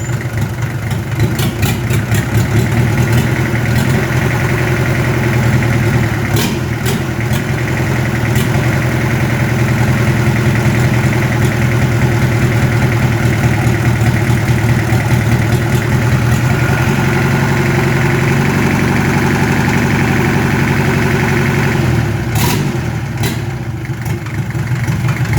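Mitsubishi PS100 engine running steadily on a test run with its newly fitted automatic throttle. Its note changes about two-thirds of the way through, and it drops back near the end with a few sharp clicks.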